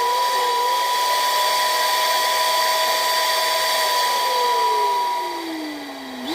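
Steam whistle blowing: a steady shrill tone over a rushing hiss, with a lower second tone that wavers and then slides down about four seconds in. The sound dips and then starts again at the very end.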